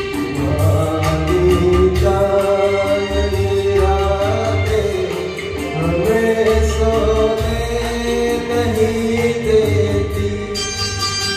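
A man singing a Hindi film song into a handheld microphone over recorded backing music.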